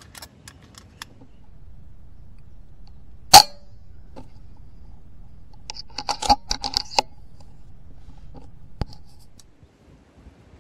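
A single sharp crack from a .177 PCP air rifle (FX Dreamline) firing, a few seconds in. About three seconds later comes a quick run of sharp mechanical clicks and rattles.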